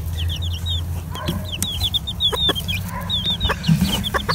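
Silkie and leghorn chicks peeping continuously in short, high, falling chirps, several a second, over a steady low hum, with a few scattered clicks.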